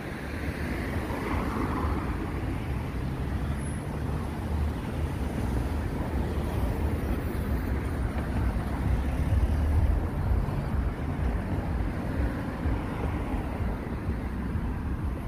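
Street traffic: cars passing on the road alongside, a steady low rumble of engines and tyres that swells a little about ten seconds in.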